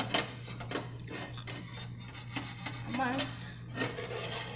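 A spatula clinking and scraping against a pan: a string of light, irregular knocks and rubs over a steady low hum.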